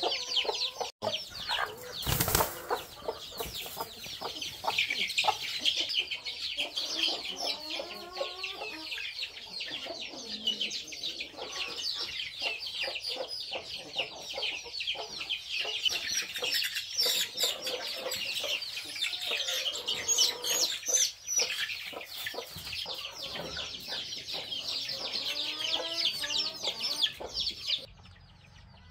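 Chickens: many chicks peeping in a dense, continuous chorus, with lower clucking calls now and then and a brief rustling burst about two seconds in. It cuts off abruptly near the end.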